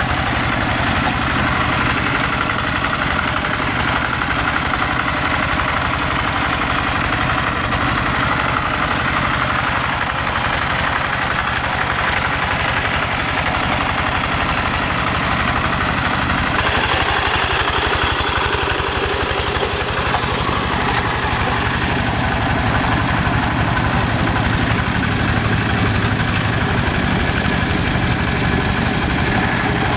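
Quick G1000 two-wheel hand tractor's single-cylinder diesel engine running steadily under load as it pulls a plow through a flooded, muddy rice paddy.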